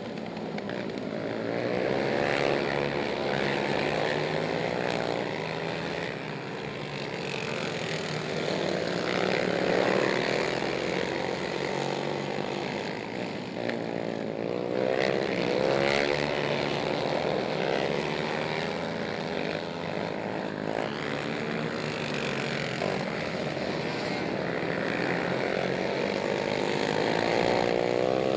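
Racing ATV (quad) engines revving hard, their buzzing pitch rising and falling over and over as the machines speed up and back off.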